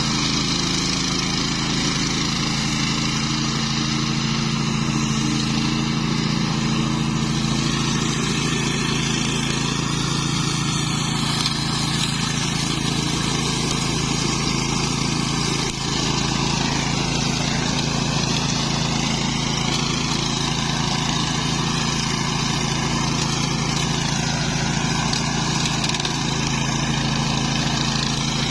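Flail mower running steadily: the engine hums with a higher whine over it that dips in pitch now and then.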